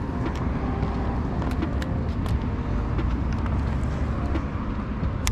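Steady low outdoor rumble of background noise, with a few faint ticks scattered through it.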